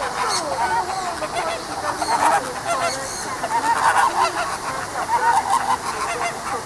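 Many birds calling at once: overlapping short squawks and honking calls that rise and fall in pitch.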